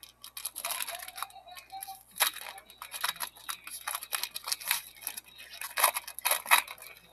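Foil trading-card pack being torn open and its wrapper crinkled and peeled apart by hand: a dense, irregular run of crackling crinkles, loudest in two spells.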